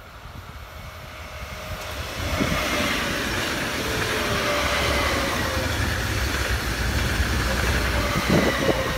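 Electric multiple-unit passenger train of two coupled sets passing close by. Wheel-on-rail noise rises over the first two to three seconds and then stays loud as the cars go by, with faint steady whines over it.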